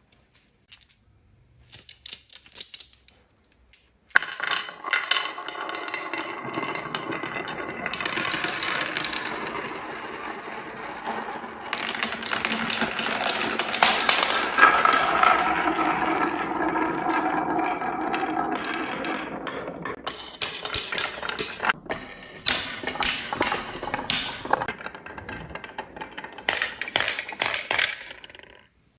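Marbles rolling and clattering down a wooden marble-run track. A few scattered clicks come first, then from about four seconds in a continuous rattling roll that stops suddenly near the end.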